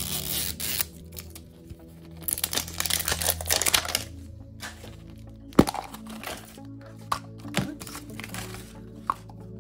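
Crinkling and tearing of a plastic capsule wrapper as its tear strip is peeled off, in two spells, then a few sharp clicks from handling the hard plastic capsule, the loudest about halfway, with paper rustling, over steady background music.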